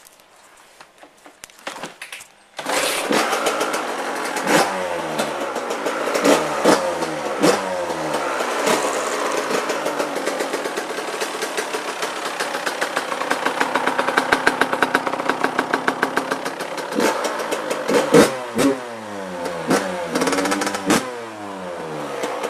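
Suzuki RM85 two-stroke dirt bike engine starting about two and a half seconds in, then revved over and over in quick rising-and-falling blips. There is a steadier stretch near the middle, and sharp revs return toward the end.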